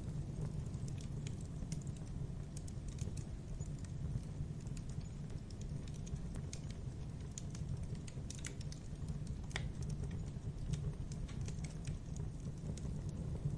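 Logs burning in a fireplace, crackling with irregular small pops and snaps over a steady low rumble. One sharper pop comes about two-thirds of the way in.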